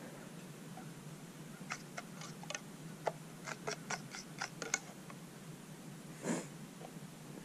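Light, irregular clicks and taps at a small wood fire pit, about three a second for some three seconds, as cookware is handled over the fire. About six seconds in comes one short rushing sound, louder than the clicks.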